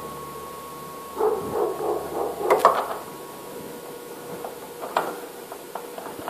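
A dog whining and yapping for about two seconds, from about a second in, among sharp metallic clinks from work on a drill press, with another clink about five seconds in.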